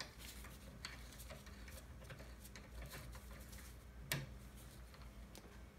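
Faint, scattered metallic ticks and clicks as the spring-tension rod on a CNC router's pinion motor mount is backed off by hand. One sharper click comes about four seconds in, over a steady low hum.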